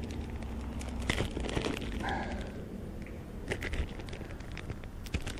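Plastic soft-bait bag crinkling and rustling in the hands, with scattered crackles as a lure is pulled out of it.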